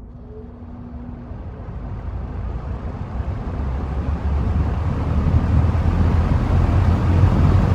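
Vintage Lasko 20-inch two-speed box fan starting up: the motor hum and the rush of air from its aluminum blade build steadily louder as the fan comes up to speed.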